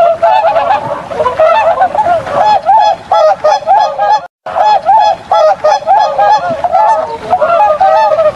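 A flock of swans honking, many nasal calls overlapping without pause. The sound cuts out completely for a moment a little past four seconds in, then the calling resumes.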